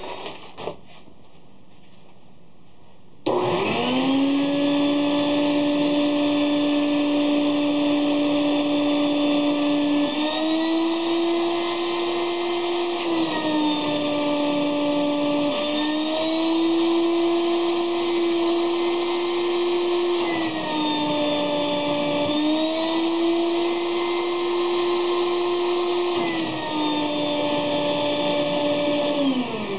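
Electric blower motor switching on about three seconds in and spinning up, then running with a steady whine as it blows air through a tube into an inflatable fabric sculpture. Its pitch steps up and down every few seconds, and it winds down near the end.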